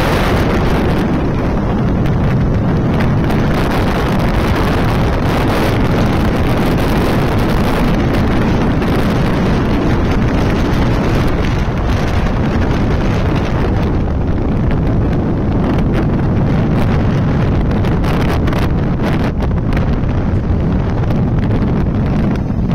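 Steady, heavy wind noise on the microphone of a Bajaj Pulsar UG3 motorcycle cruising at highway speed, with the bike's single-cylinder engine and tyre noise running underneath.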